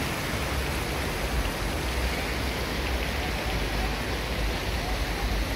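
Steady rushing city ambience with a low rumble throughout.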